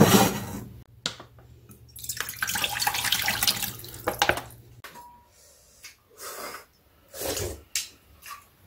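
Ready-made seaweed soup poured from a pouch into a pot: a splashing, gurgling pour lasting a couple of seconds, over a steady low hum that stops about five seconds in.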